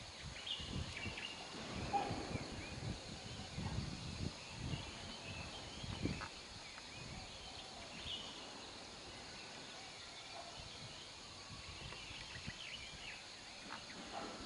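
Outdoor ambience: scattered small bird chirps over a low, uneven rumble that dies down about halfway through.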